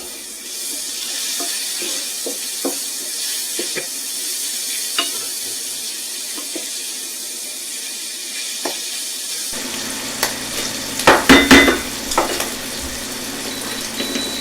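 Ground pork breakfast sausage sizzling as it browns in a frying pan, with scattered light clicks of a utensil stirring it. About eleven seconds in, a short cluster of loud knocks against the pan.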